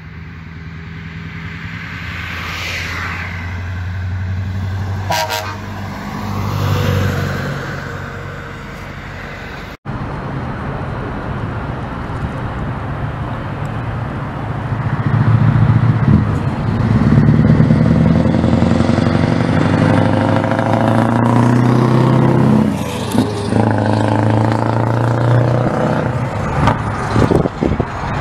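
Scania V8 trucks with open exhaust pipes driving past: first one approaching with a steady deep engine note and a brief horn toot about five seconds in; then, after a cut, another Scania V8 hauling a container accelerates past, its open-pipe rumble louder and rising in pitch as it pulls through the gears.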